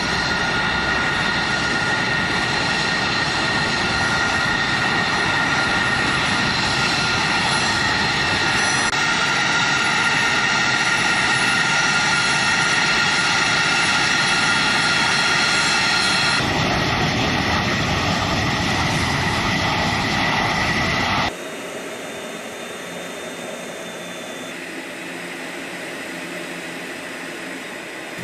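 Jet aircraft engine running steadily, a dense rushing noise with several high whining tones, until an abrupt cut about 21 seconds in to a quieter, thinner steady noise.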